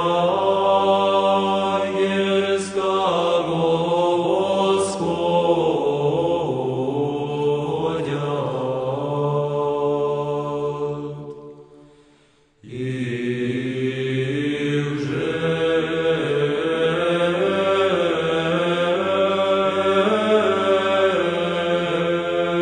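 Russian Orthodox monastic men's choir singing unaccompanied liturgical chant, the melody moving over a steady low held note. About halfway through, one hymn dies away into a brief silence, and then the choir begins the next hymn at full voice.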